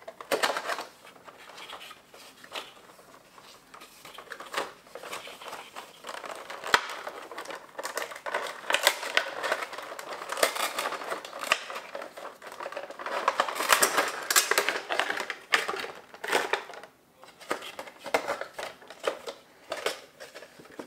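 A cardboard Funko Pop box being opened by hand and its clear plastic insert slid out: irregular rustling, scraping and crinkling of cardboard and thin plastic, with sharper clicks now and then.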